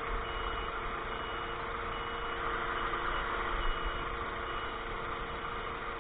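DAF hook-loader lorry's diesel engine running its Palfinger hook-lift hydraulics as a roll-on/roll-off skip is drawn up onto the body, with a steady hum. A warning beeper gives a short high beep about once a second, the alarm that sounds while the hook arm is working.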